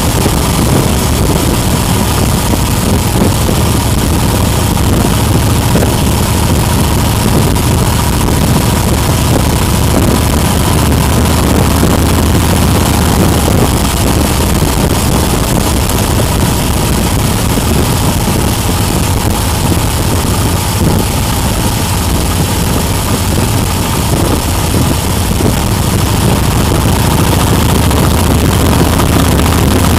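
Motorcycle engine running steadily at cruising speed, under heavy wind rush on the onboard microphone.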